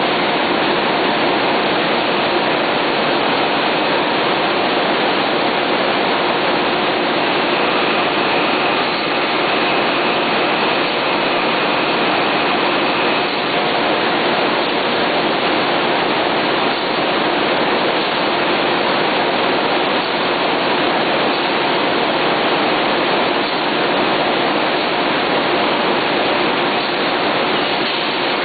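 Loud, steady machine noise of a running Harris M1000B web offset printing press and its Butler roll stands, paper webs feeding through at speed. A faint high whine rises out of it for several seconds in the middle.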